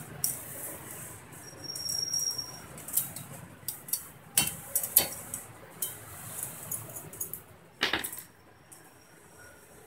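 Sheet-metal edge-bevel guide jig clicking and clinking against the steel base plate of a handheld tile cutter as it is worked loose and lifted off by hand. The clicks are scattered and sharp, with the louder ones about four and a half, five and eight seconds in.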